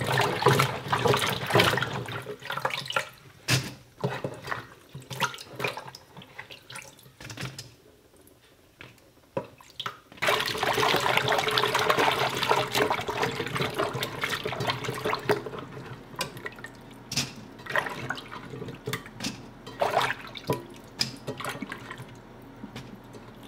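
Okra pods being swished and rubbed by hand in a stainless steel pot of water in a sink: irregular splashing and sloshing with small knocks against the pot. About ten seconds in, a steady rush of running water lasts about five seconds before the scattered splashing returns.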